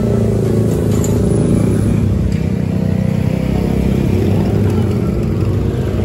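Heavy diesel engine running steadily at an even, low pitch.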